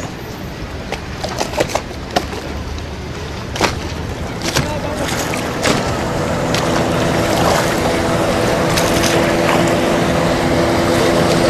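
Sounds of a boat on the water: scattered knocks and clicks at first, then from about halfway a steady engine hum that slowly grows louder.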